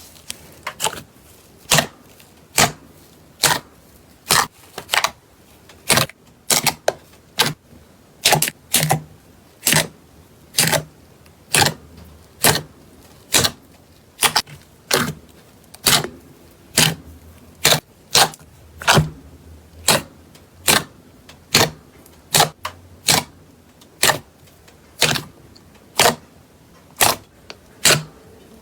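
Slime being pressed and squeezed by hand, giving sharp popping clicks at a steady pace of about one loud pop a second, with fainter pops in between.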